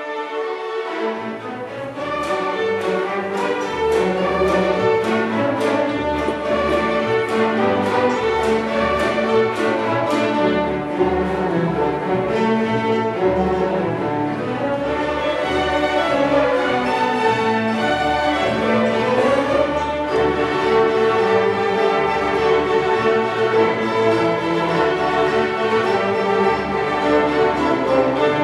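A string orchestra of violins, violas, cellos and double bass playing an American fiddle-tune medley, with bowed melody over low bass notes.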